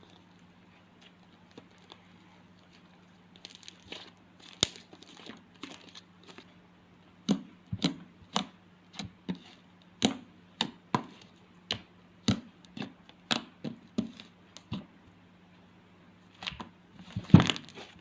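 Blueberry slime being pressed and stretched by hand, letting out sharp pops about once or twice a second, with a louder cluster near the end, over a faint steady hum.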